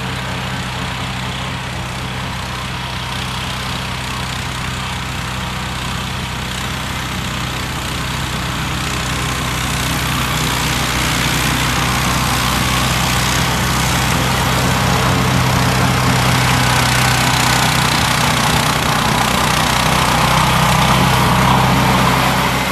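Modified 16 hp John Deere 1032 snowblower engine running steadily, getting louder from about ten seconds in and easing off just before the end.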